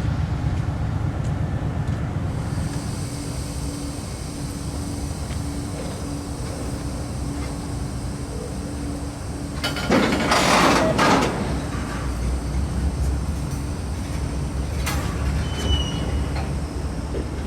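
Freight train rolling slowly over flooded track, a steady low rumble. A loud rushing burst of noise comes about ten seconds in and lasts about a second and a half, and a brief high squeal follows near the end.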